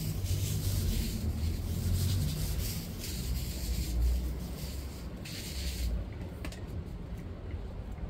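Rustling, rubbing noise over an uneven low rumble. The high hiss of the rustling drops away about six seconds in, leaving the rumble and a few faint ticks.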